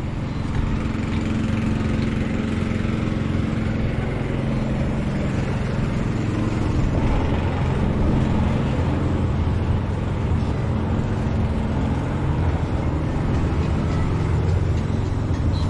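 A motor vehicle engine running steadily, a low, constant hum with no clear change in pitch.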